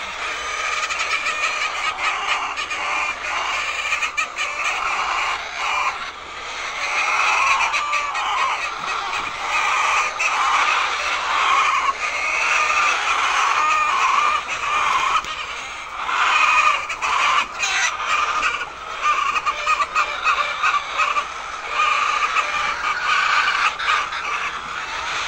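Many hens clucking and calling at once, their calls overlapping without a break.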